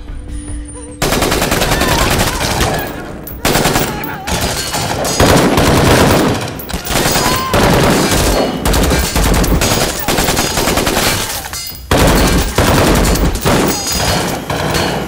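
Automatic gunfire from a shootout: rapid, dense volleys of shots starting about a second in, with a few brief breaks between the bursts.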